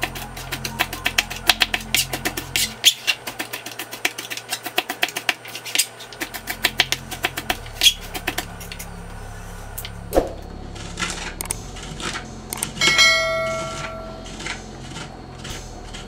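Kitchen knife chopping vegetables on a plastic cutting board: quick knocks of the blade, about five a second, thinning out after about eight seconds into slower, scattered strokes. A short bell-like ding rings about thirteen seconds in.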